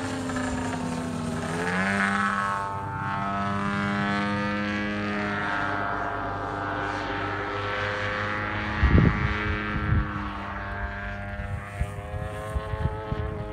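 Radio-controlled Corvus racer flying overhead, its gas engine and propeller buzzing in a steady pitched tone that steps up about two seconds in and then slowly sags and rises again as the plane passes. Wind rumbles on the microphone about nine seconds in and in short gusts near the end.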